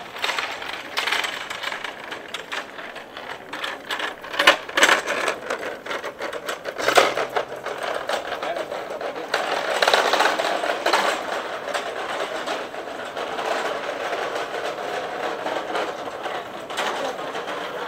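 Small wheels of a hand trolley rattling rapidly over paving stones as it is pushed along, with a few louder clatters.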